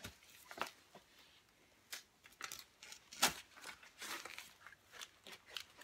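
Paper and plastic mailing envelopes rustling, crinkling and tearing as they are opened by hand, in short scattered rustles, the loudest a little past three seconds in.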